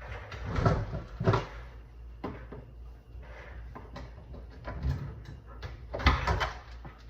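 Kitchen cupboards and drawers being opened and shut: a string of knocks and bangs, the loudest about half a second in, just after a second, and about six seconds in.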